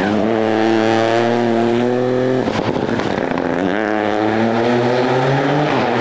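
Ford Fiesta rally car engine running hard as the car passes and pulls away. The engine note eases down, breaks off briefly about halfway through, then picks up again.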